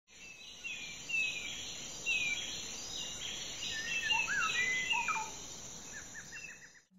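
Several birds singing: repeated short down-slurred whistles, some lower rising and falling notes, and a quick run of ticks near the end, over a steady high-pitched drone.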